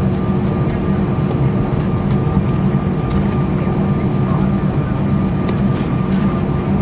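Cabin noise of an Airbus A319 taxiing on idling jet engines: a steady rumble with a constant thin whine over it.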